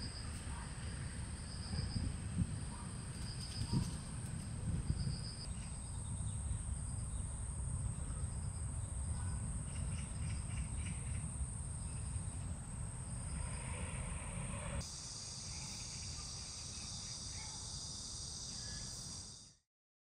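Forest insects trilling steadily at a high pitch, with a shorter chirp repeating every second or so, over a low rumble. About fifteen seconds in the sound changes abruptly to a thicker insect chorus, then cuts off just before the end.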